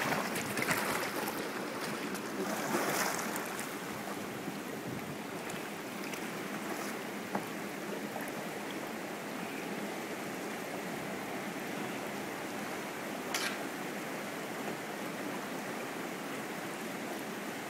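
Whitewater rapids rushing steadily through a rocky gorge, with a few louder water swishes in the first three seconds and a single short tick about thirteen seconds in.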